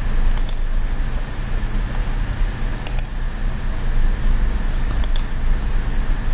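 Computer mouse clicking three times, about half a second, three seconds and five seconds in, each a quick double click like a button press and release. A steady low hum runs underneath.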